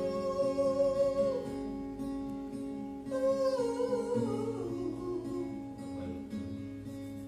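A male voice sings a wordless "ooh" vocalise over acoustic guitar. One long held note is followed, about three seconds in, by a second note that slides down in steps.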